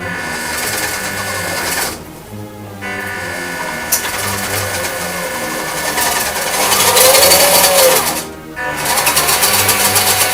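WPL D12 RC truck's small electric motor and plastic gearbox whirring in three bursts of throttle, with a pitch that rises and falls near the end of one burst. Background music with a steady beat plays underneath.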